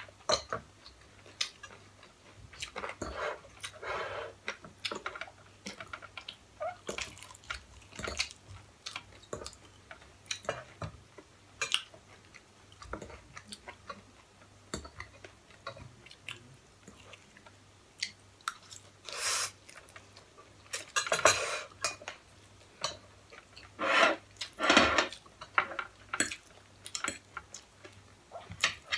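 Two people eating fried chicken and noodles: chewing, with frequent light clicks of forks on ceramic plates, and a few louder eating noises about two-thirds of the way in.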